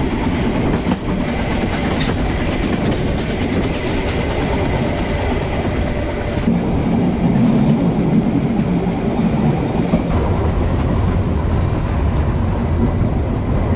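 Harz narrow-gauge steam train rolling along the track, heard from aboard a coach: a steady rumble and rattle of wheels and carriages. The sound shifts about six seconds in and again about ten seconds in.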